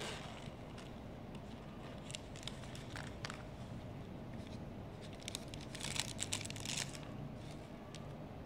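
Clear plastic packaging crinkling as it is handled inside an unboxed sunglasses case, with a few light rustles about two to three seconds in and a louder run of crinkling around five to seven seconds in.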